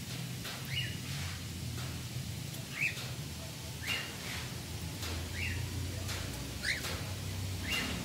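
Cockatiels giving short chirping contact calls, about seven in all, roughly one a second, some falling in pitch, over a steady low hum.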